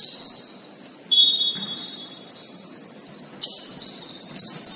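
Basketball shoes squeaking on the court as players cut and stop, in several short, high-pitched squeals, with a few knocks among them.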